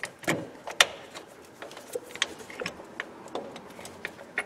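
Lotus Elise gear shift cable ends being worked out of their metal chassis bracket by hand: irregular metallic clicks and light knocks, the sharpest just under a second in.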